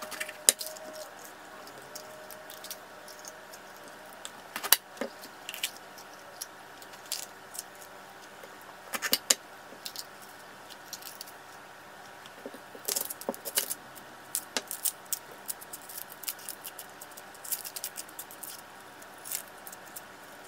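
Chef's knife cutting bell peppers on a paper-towel-covered cutting board: scattered sharp taps and crisp snaps, in short clusters, with rustling as the peppers are seeded by hand and an onion's dry skin is peeled off.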